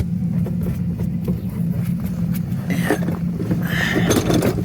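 Plastic engine undertray being handled and pushed into place under the car: scattered clicks and scrapes, with short higher scraping sounds about three and four seconds in, over a steady low hum.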